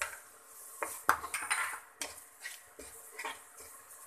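Wooden spatula scraping crumbled mawa (khoya) out of a ceramic bowl into a non-stick frying pan, then stirring it in the pan, with several light, scattered knocks against the bowl and pan.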